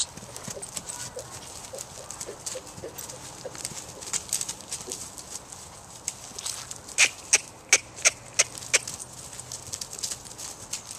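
Hoofbeats of a grey Welsh pony colt trotting and cantering loose on grass, heard as a run of sharp clicks that is strongest and most regular about two-thirds of the way in, at roughly three beats a second.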